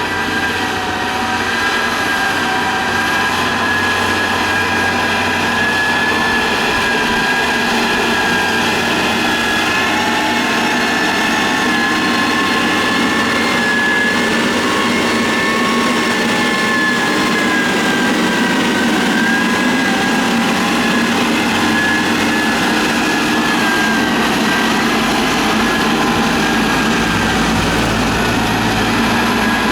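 Motor grader's diesel engine running steadily under load, with a high, slightly wavering whine over a low engine drone.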